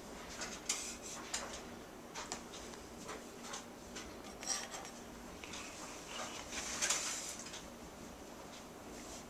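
A spatula scraping and clinking lightly against metal as freshly baked cookies are lifted onto a wire cooling rack, with a few scattered faint clicks.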